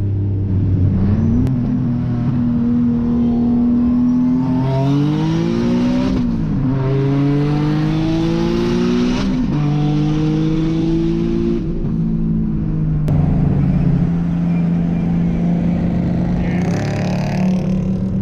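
Single-turbo Nissan 370Z's 3.7-litre VQ37VHR V6 heard from inside the cabin, accelerating hard: the engine note climbs twice and drops sharply each time, about six and nine seconds in, as it is shifted up. It then settles into a steady cruise.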